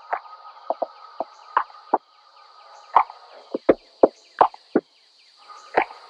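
Background music with sparse, irregular percussive strikes over a faint held tone.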